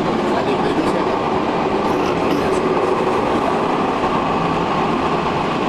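Croydon Tramlink Bombardier CR4000 tram running steadily along the track, heard from the driver's cab: a continuous rumble of steel wheels on the rails.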